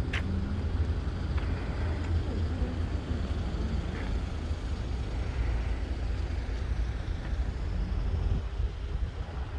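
Street traffic: a steady low rumble of passing vehicles, with a sharp click about a tenth of a second in.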